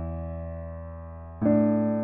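Background music of slow piano chords: a held chord fades away, and a new chord is struck about one and a half seconds in.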